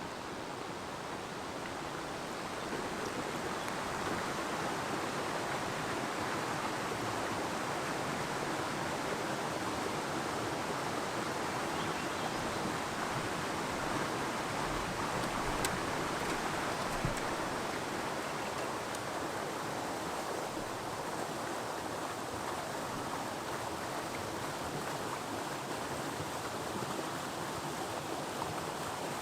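A creek's rushing water, a steady hiss that grows louder about three seconds in.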